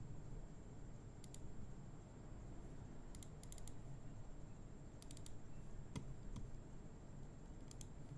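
Faint, sparse computer clicks in small groups of two to five, with single clicks between, over a low steady room hum.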